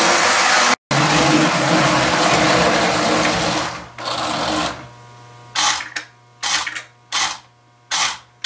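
Lionel O-gauge locomotive motor and gears whirring steadily as the train rolls along the track, stopping about four seconds in. A low electric hum then remains, and from about halfway short buzzes repeat about once a second: the Lionel 3472 milk car's unloading mechanism being worked to push milk cans out onto the platform.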